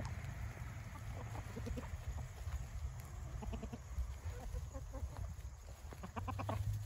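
A flock of laying hens clucking softly while pecking at feed on the ground, with short scattered calls and a louder run of calls a little after six seconds in.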